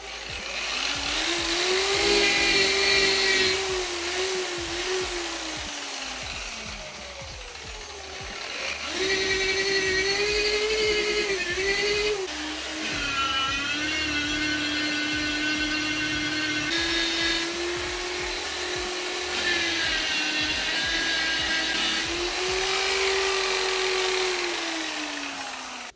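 Small handheld electric polisher running in four long stretches, its motor whine gliding up as it spins up and sinking as it slows between runs, while buffing scratches out of a plastic gauge-cluster lens with rubbing compound.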